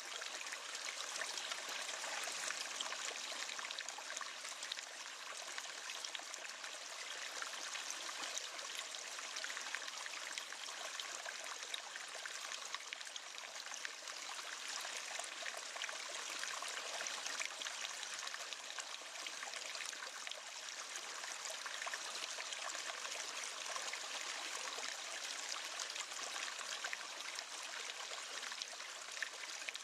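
River water flowing and babbling steadily, a continuous splashing rush with fine flickering detail and no breaks.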